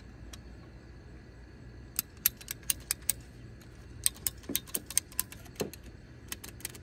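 Ratcheting hose cutter clicking as it ratchets its blade through a hose, in runs of sharp clicks, several a second, starting about two seconds in.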